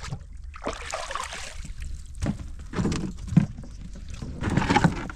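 Sounds aboard a small fishing boat at sea: a steady low hum under irregular knocks and rushes of noise.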